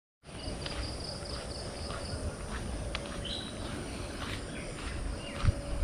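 Dawn outdoor ambience: insects keep up a steady high-pitched drone, with a quick run of short repeated chirps in the first two seconds and a few scattered bird chirps.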